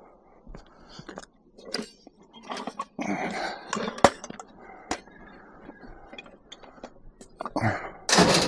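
Scrap items being handled and loaded: irregular knocks, scrapes and clatter, with a sharp knock about four seconds in and a louder scraping burst near the end.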